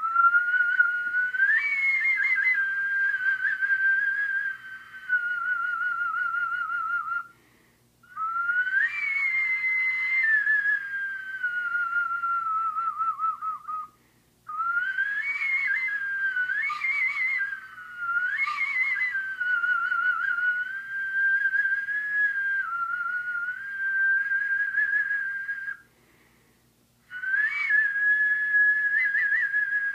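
Iwabue, a Japanese stone flute made from a natural stone with shell-bored holes, blown in long, breathy, high whistling tones. There are four breaths, each starting with an upward scoop, then sliding and wavering in pitch, with short pauses between them.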